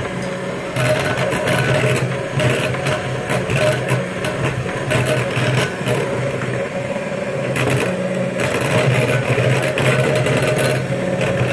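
Handheld electric mixer running steadily, its beaters whipping egg whites and hot sugar syrup into a marshmallow-like frosting.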